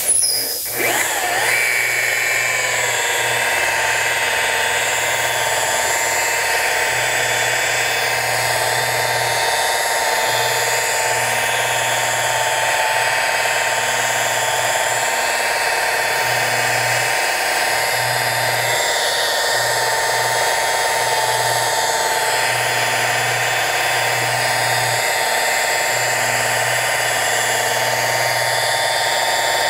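Rotary polisher with a wool pad starting up, its whine rising in pitch over the first couple of seconds, then running steadily at about 1400 RPM while compounding wet-sanded paint.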